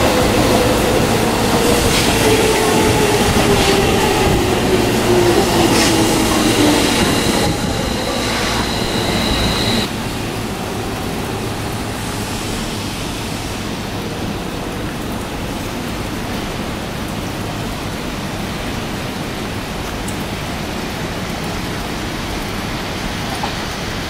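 Joban Line local electric train running past with wheel and rail noise, its motor whine falling steadily in pitch over about seven seconds. A high squeal follows for a couple of seconds and cuts off sharply about ten seconds in. After that only a steady rushing noise remains.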